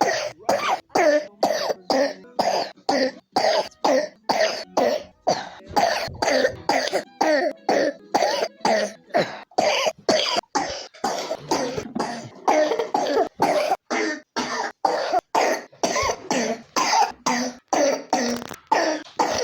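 A three-year-old child with pneumonia coughing in an unbroken run of short coughs, about two to three a second.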